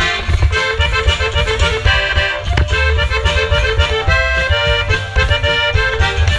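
Live band playing dance music: an accordion plays quick runs of short notes over electric bass and drums keeping a steady beat.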